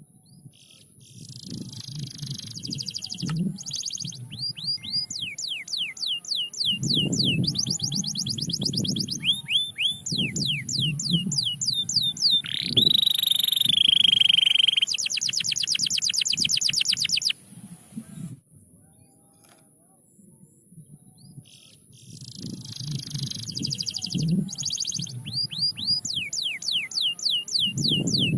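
Domestic canary singing: long phrases of rapid high trills and rolls mixed with series of falling whistled notes for about fifteen seconds, then a pause of a few seconds before it starts the same phrases again.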